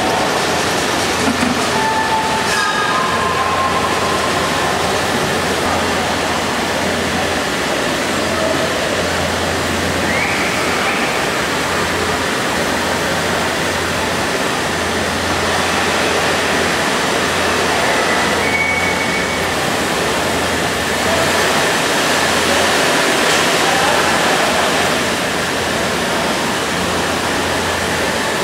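Steady, noisy ambience of a large hall, with a crowd and 5-inch gauge model trains running on the track. A few faint short whistle-like tones come through, one rising about ten seconds in and one held about eighteen seconds in.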